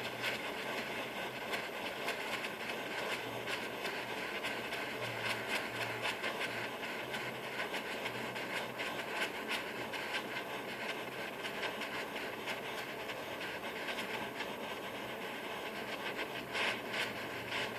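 Butane gas soldering iron running as a torch: a steady flame hiss with fine crackling, its flame playing on a piece to melt it.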